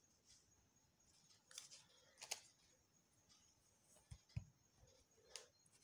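Quiet handling of fabric cutouts on a paper backing: faint rustling with a sharp click a little after two seconds, two low soft thumps just after four seconds, and a last rustle near the end as hands press and smooth the pieces into place.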